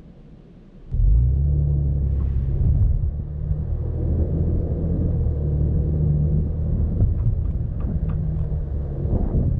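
Vehicle engine and tyres on a gravel dirt road, a steady low rumble that comes in suddenly about a second in, with a few faint clicks and rattles later on.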